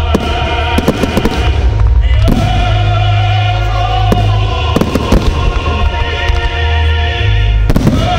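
Fireworks display: aerial shells bursting with sharp bangs and crackle at irregular moments, over loud music with long held notes.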